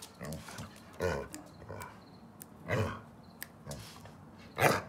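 Dogs making short vocal sounds, four brief ones spread across a few seconds, the last and loudest near the end.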